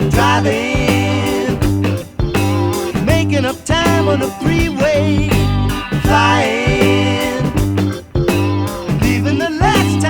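Early-1970s rock band recording: bass and drums under a melody line whose notes bend and waver in pitch.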